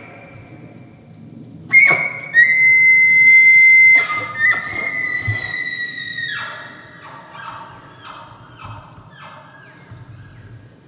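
Bull elk bugling in the rut: a rising squeal into a long, high whistle held for about two seconds, sliding slightly lower, then breaking into a string of about six short grunting chuckles.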